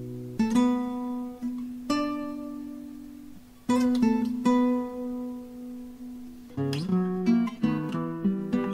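Guitar music: plucked notes and chords left to ring out, turning to quicker picking about two-thirds of the way through.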